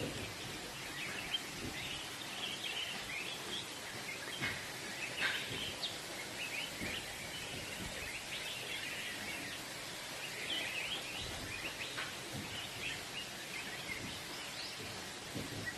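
Outdoor ambience: a steady background hiss with small birds chirping on and off throughout.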